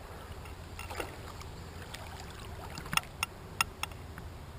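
Water splashing and sloshing as a channel catfish is held in the shallow creek water, with four sharp splashes about three to four seconds in, over a steady low rumble.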